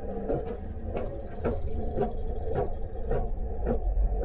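Steady low rumble of a cruise ship underway, with soft knocks about twice a second in a walking rhythm, like footsteps.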